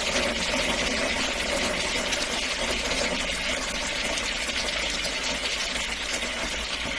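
Water running steadily into and down a toilet bowl that has just been unclogged, draining freely.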